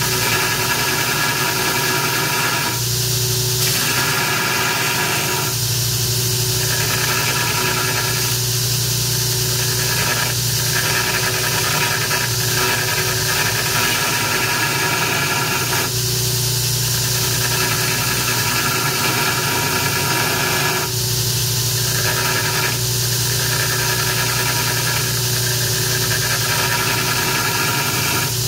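Grizzly 2x72 belt grinder running with an AEB-L stainless steel knife blank pressed against the belt on the flat platen: a steady grinding sound over the motor's hum, throwing sparks. The grinding breaks off briefly every few seconds.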